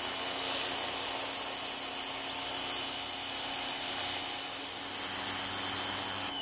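Greenworks 2000-PSI electric pressure washer running, its turbo nozzle blasting a steady hiss of water onto a concrete paver over a low steady hum. The spray cuts off suddenly near the end.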